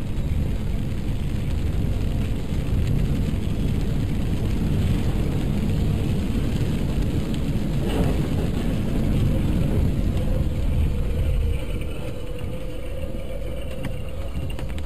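Steady road and engine noise of a car driving on a wet highway in heavy rain, heard from inside the cabin through a dashcam, with a single brief knock about eight seconds in. The noise eases slightly a few seconds before the end.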